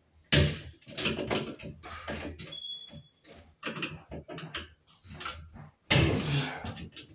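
Irregular clicks, knocks and rattles of hands working the wires and wire connectors at the end of a ceiling fluorescent light fixture while disconnecting it. A louder rustling scrape comes about six seconds in.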